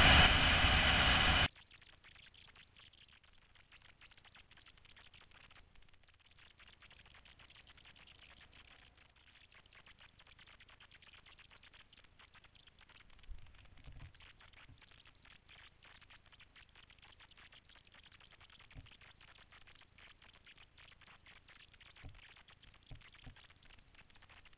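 Wind and engine noise of a motorcycle at speed, which cuts off abruptly about a second and a half in. After that there is only a faint steady hiss with a few soft low thumps.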